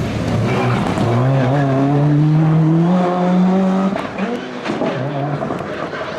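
Rally car engine accelerating hard, its pitch climbing steadily for a couple of seconds, holding, then dropping away about four seconds in as the driver lifts off.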